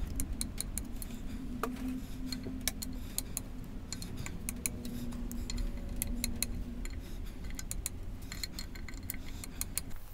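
Ratchet head of a click-type torque wrench clicking in quick, irregular runs as it turns the bolts of a clutch pressure plate against the flywheel.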